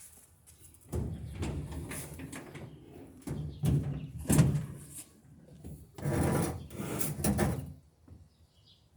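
Portable washing machine being tipped over and laid down at a tilt, its cabinet scraping and bumping in several irregular scrapes and knocks, the loudest about halfway through.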